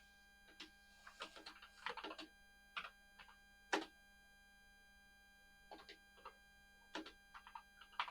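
Faint, irregular clicking of computer keyboard keys.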